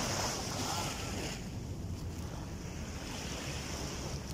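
Small waves washing onto a sandy shore, with wind rumbling on the microphone.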